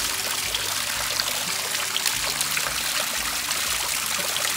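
Water from a stone garden fountain spilling over the rim of a large urn and splashing steadily into the pool below.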